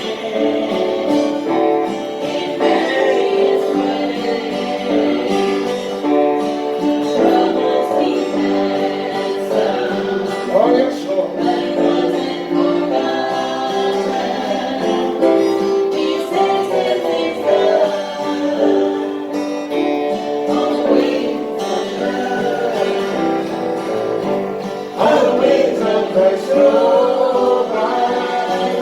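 Gospel music: singing accompanied by a plucked guitar.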